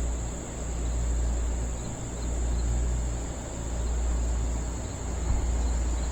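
Wind buffeting the microphone, a low rumble that swells and fades every second or so, over the steady high chirring of crickets.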